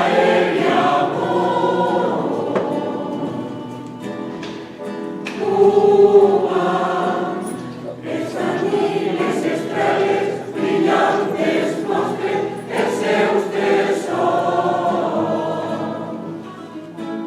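Choir singing a habanera in sustained phrases that swell and fade, loudest about six seconds in.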